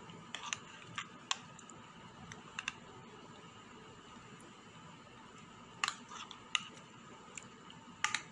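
Metal kitchen utensils, a wire whisk and a spoon, clicking against a metal cooking pan: scattered sharp clicks, several in pairs, over a faint steady hiss.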